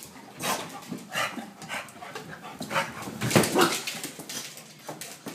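Pit bulls play-fighting, giving a run of short, irregular dog vocal sounds that is loudest about three seconds in.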